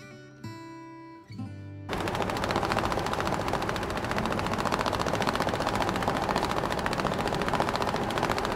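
A few soft plucked notes of music, then from about two seconds in a loud, steady, very fast rattle of clicks that does not let up.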